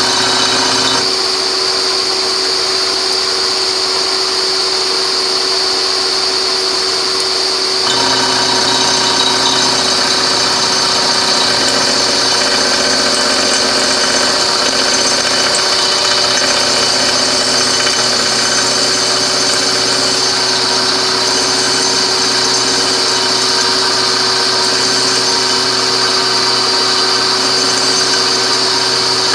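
Milling machine running, its reground 2-flute end mill cutting down into a broken titanium wheel bolt, with a steady hum under the cutting noise. The sound thins about a second in and fills out again around eight seconds in.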